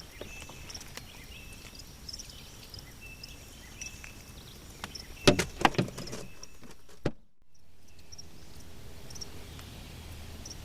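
Outdoor background with scattered short bird chirps, broken by a quick cluster of knocks about five seconds in and one more knock near seven seconds. Just after that the sound drops out for a moment, and then a low steady hum runs under the background.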